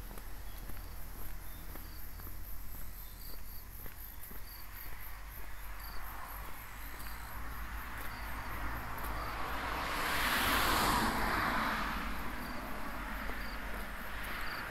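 Insects chirping in a fast, even, high-pitched pulse over a low steady rumble. About ten seconds in, a broad rushing noise swells up and fades.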